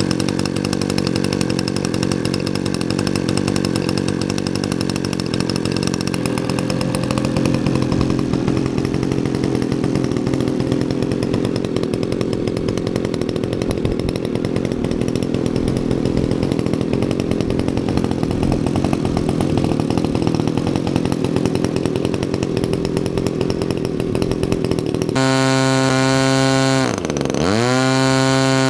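NGH GT35 35cc single-cylinder two-stroke gasoline engine on a large model airplane, running steadily with its propeller spinning during first break-in. Near the end its revs drop sharply and climb back, twice.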